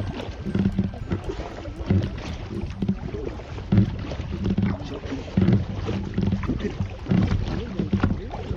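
Kayak paddle strokes dipping and splashing in lake water, about one stroke every second and a half, over a low rumble of wind on the microphone.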